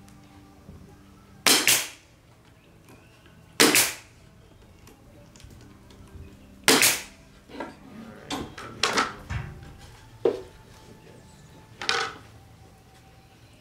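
Pneumatic stapler firing staples into a plywood box, four sharp shots a few seconds apart. Lighter clicks and knocks of the wood being handled come between the third and fourth shots.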